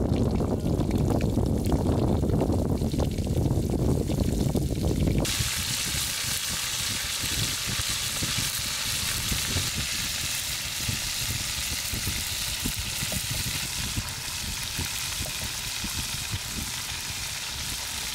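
Battered octopus deep-frying in hot oil in a wok: a steady sizzling hiss with many small crackles. For about the first five seconds a low rumbling noise dominates, and it cuts off abruptly.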